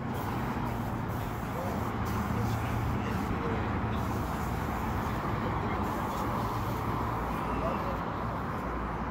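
Outdoor road-traffic noise: a steady low hum of vehicles with faint, indistinct voices.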